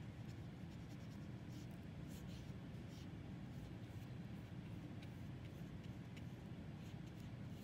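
Faint scratchy swishes of a paintbrush spreading wet paint across paper, a few soft strokes over a low steady hum.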